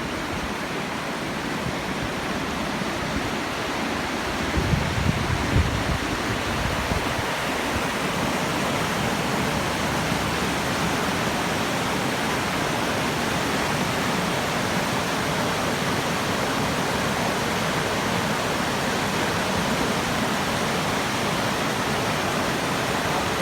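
A stream running: a steady rush of water. A few low bumps come about five seconds in.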